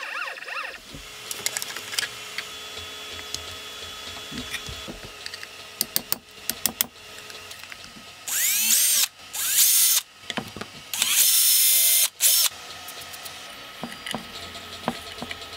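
Cordless drill-driver driving screws into a 3D-printed plastic bracket in three short runs in quick succession, the motor whine rising as each run starts, the last run the longest. Light clicks and knocks of parts being handled come before and after.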